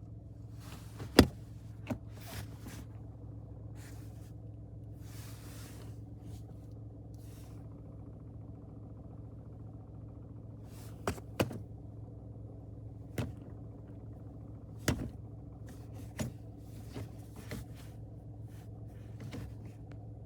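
Ford Focus Mk4's 1.0 EcoBoost three-cylinder engine idling steadily, with a dozen or so irregular sharp clicks and knocks over the hum, the loudest about a second in. This is the rattle being checked with the clutch engaged and disengaged, suspected to come from the dual-mass flywheel.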